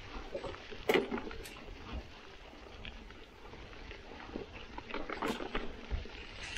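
Mountain bike tyres rolling over dry fallen leaves and dirt on a woodland trail, with crackling and the bike rattling in short clicks; a louder knock comes about a second in and a burst of clicks about five seconds in.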